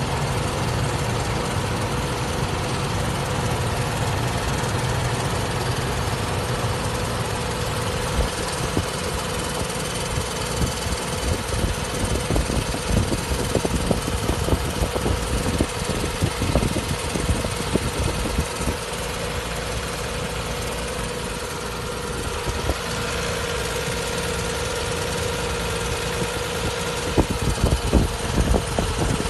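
Nissan 300ZX (Z32) 3.0 L V6 idling steadily with a continuous very light grinding sound, traced to a loose cover bolt bushing after a timing belt replacement. Irregular low bumps come and go from about a third of the way in.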